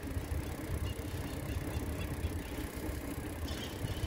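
Bicycle ride on a paved bike path: an uneven low rumble of wind on the microphone and tyre noise, with a brief faint crackle near the end.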